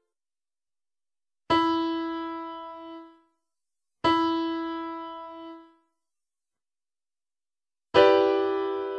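A piano-toned keyboard plays a single note twice, each struck and left to fade over about a second and a half. Near the end it strikes a fuller chord of several notes: ear-training test items.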